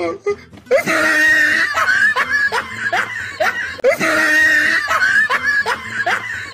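A laughing sound effect, the same roughly three-second laugh played twice in a row.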